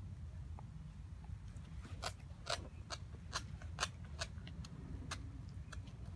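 Siberian husky gnawing a raw steak bone: a run of sharp crunching clicks of teeth on bone, about two a second, for a few seconds in the middle, over a steady low background rumble.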